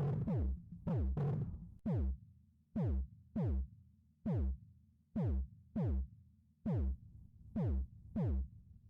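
Electronic background music: a drum-machine beat of deep, booming kick hits that drop in pitch, coming singly and in pairs about every half second to a second, stopping near the end.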